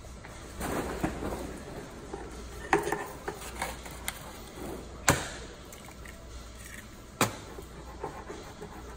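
An egg frying in a small pan on an electric hot plate gives a faint steady hiss. Over it come a few sharp knocks and clatters of the pan and a utensil, the loudest about five and seven seconds in.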